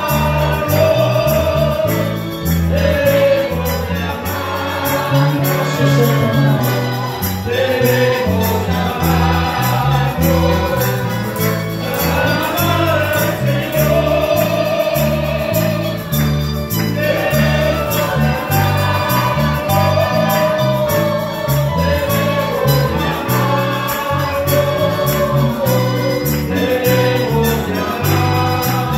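Many voices singing a hymn together, accompanied by strummed guitars and other string instruments, with a steady rhythm and a moving bass line.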